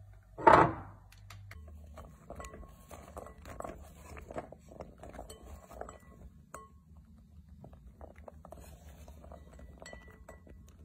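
A short, loud burst about half a second in, then diced soppressata and pecorino cubes being stirred by hand in a glass bowl: many small, quiet clicks and clinks against the glass.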